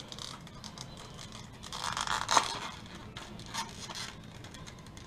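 Packaging being opened by hand: handling and tearing noise with a louder stretch about two seconds in, ending in a sharp click, then a few small clicks.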